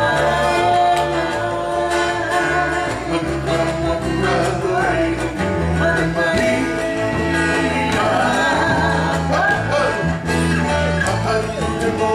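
Singing with instrumental accompaniment: a steady, rhythmic bass line under the voices.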